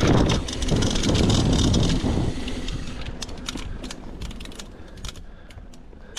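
Mountain bike riding downhill: tyre and trail noise with wind buffeting the microphone, loud for about two seconds and then fading as the bike slows, with scattered sharp ticks and rattles from the bike through the quieter part.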